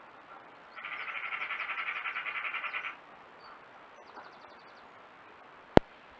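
A rapid rattling chatter of about ten pulses a second that lasts about two seconds, with faint high chirps of small birds around it. A single sharp click near the end is the loudest sound.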